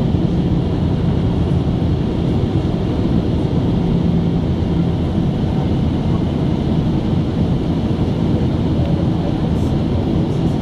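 Boeing 767-300 jet engines and airflow heard inside the cabin while climbing after takeoff: a loud, steady rushing noise with a faint low hum.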